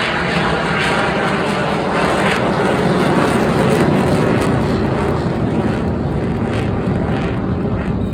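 Aircraft engine noise from a plane flying past, loud and swelling to a peak about halfway through before easing off near the end.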